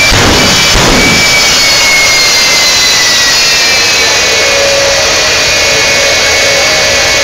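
Jet-powered semi truck's jet engines running very loud and steady, flames shooting from the stacks. A high whine glides slowly down in pitch from about a second in, and a lower steady tone joins about four and a half seconds in.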